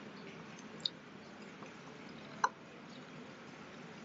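Quiet chewing of soba noodles, mouth closed, with two small sharp clicks, a faint one about a second in and a louder one about two and a half seconds in.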